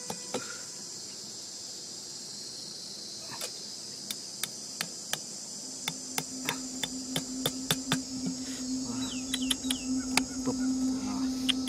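Back of an axe head knocking a bent wire stake into the ground, a run of sharp knocks about twice a second starting a few seconds in, over a steady high chirring of insects.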